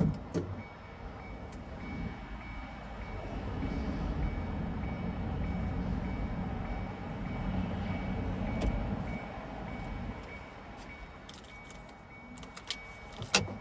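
Car driving along a highway: a steady low rumble of engine and tyre noise. A faint high beeping repeats evenly through it, and there are a couple of sharp knocks, one at the start and a louder one near the end.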